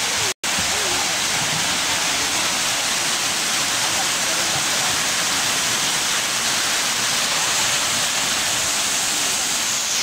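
Waterfall pouring into a rock pool: a steady, loud rushing of falling water, cut by a momentary dropout in the sound about half a second in.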